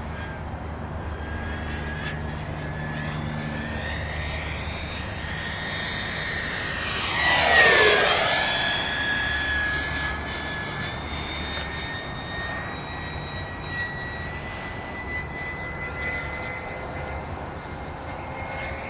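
Electric ducted fan of an RC jet (Yellow Aircraft Stingray EDF conversion) whining in flight. The high whine swells into a fast, loud pass about eight seconds in, drops in pitch as the jet goes by, then settles back to a steady, fainter whine.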